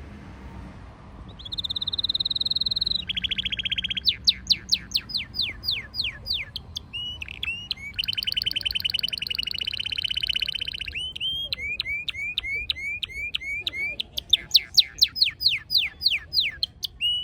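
Red canary singing a long varied song: a steady high trill, fast rolling trills, runs of quick falling whistled notes at about four a second, and a series of short rising chirps.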